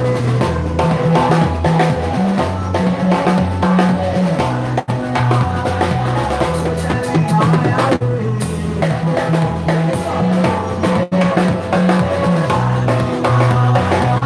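Live band playing upbeat praise music: a drum kit keeps the beat over a moving bass line, with sustained pitched tones above. The sound cuts out for an instant twice.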